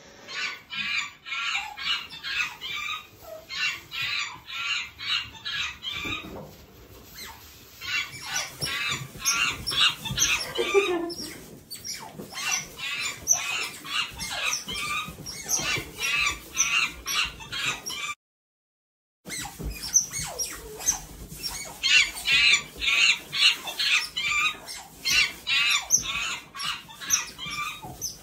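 Several Asian small-clawed otters calling together in a stream of shrill, high chirps, several a second, that breaks off for about a second two-thirds of the way through.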